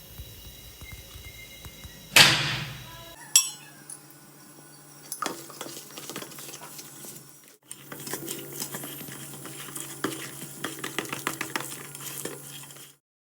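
A spoon clinking and scraping against a bowl, stirring selroti batter of rice flour with sugar and ghee. There is one louder clatter about two seconds in, then quick repeated clinks and scrapes until it stops near the end.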